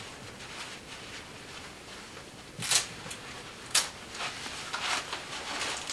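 Hook-and-loop (Velcro) patches holding a leather race suit's liner at the leg being torn apart: two short rips about a second apart, then a couple of fainter ones, over a low rustle of leather and fabric being handled.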